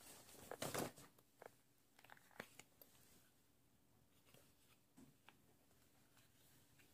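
Quiet handling noises of makeup items, including a powder compact: a burst of rustling and sharp clicks about a second in, then a few scattered light clicks.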